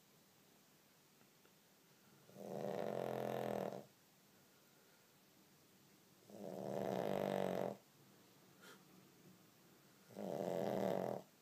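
Pug snoring while awake: three long snores, each about a second and a half, coming about every four seconds.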